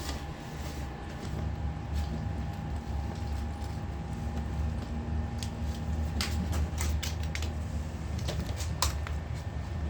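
Scattered light clicks and taps, more of them in the second half, over a steady low hum.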